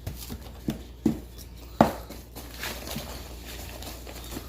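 Paintbrushes dabbing and scrubbing paint onto a paper volcano model, with three sharp taps, the loudest a little under two seconds in.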